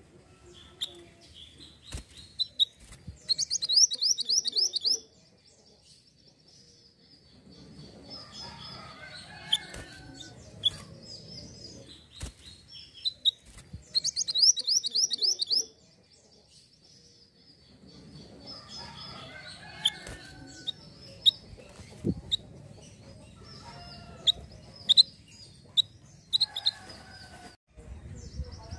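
Minivet (mantenan) singing: two bursts of rapid, high trilled notes about ten seconds apart, each lasting a second or two, between scattered single high chirps.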